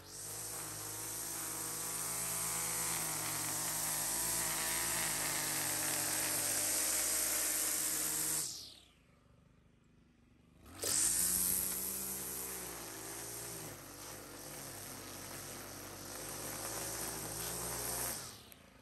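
Stihl FS 91 R string trimmer's small 4-MIX engine running at high throttle as the line cuts through thick grass along a concrete path edge. Just past the middle the engine sound falls away for about two seconds, then it surges back to full throttle and keeps cutting, dropping off again near the end.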